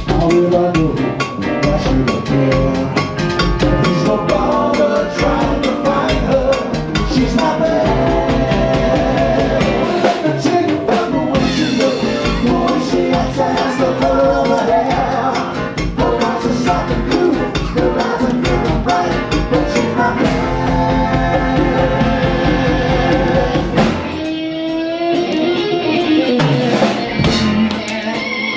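Latin band playing live, with drum kit, guitar and singing over a steady beat. The drums and low end drop out briefly a few seconds before the end, then come back.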